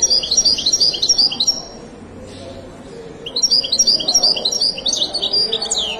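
A caged European goldfinch of the Moroccan 'wedani' type singing. It gives two bursts of fast, high twittering song: a short phrase, a pause of about a second and a half, then a longer phrase that ends in a downward-sliding note.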